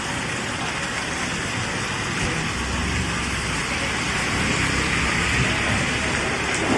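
Heavy rain falling steadily, with a low rumble in the middle.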